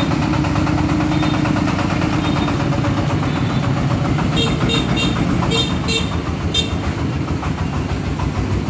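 Single-cylinder diesel engine of a homemade công nông three-wheeled truck, running steadily with a fast chugging as it pulls a trailer loaded with concrete piles. About halfway through come a few short, high squeaks.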